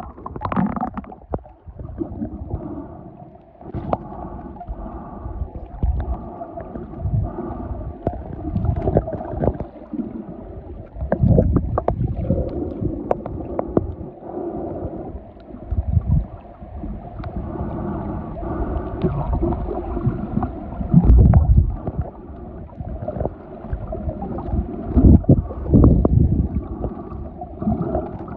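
Muffled underwater sound picked up by a submerged camera: water gurgling and sloshing, with occasional heavy low thumps.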